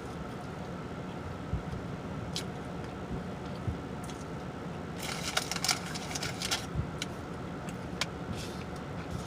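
Close-up eating sounds: chewing and lip smacking, heard as scattered small clicks over the steady hum inside a car. A second and a half of dense crackling comes about five seconds in.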